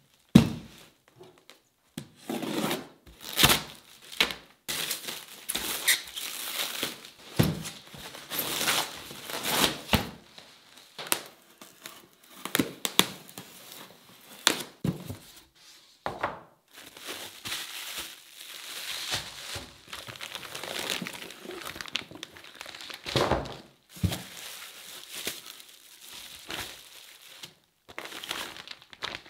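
Plastic packaging crinkling and tearing as a parcel wrapped in black plastic is unwrapped and a foam shipping box is opened, then vacuum-packed fish in plastic bags are handled. Irregular rustling with sharp cracks and occasional thunks on a wooden table, the loudest a sharp knock right at the start.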